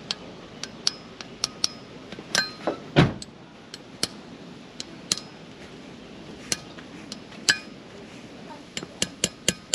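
Hammer tapping on a Toyota Hilux front wheel hub and brake disc to seat a freshly greased wheel bearing part: sharp, irregular metal taps, each ringing briefly. There is one heavier thump about three seconds in and a quick run of taps near the end.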